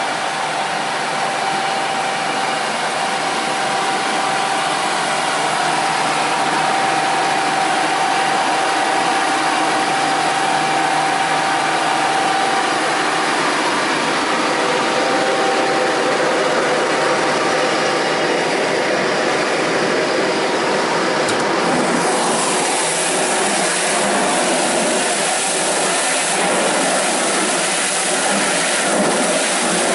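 Breddo Likwifier 60 HP high-shear blender running: a steady mechanical drone with a whine from the motor and the spinning blade assembly at the bottom of the stainless tank. The whine fades out partway through, and the sound turns brighter and more hissing about two-thirds of the way in.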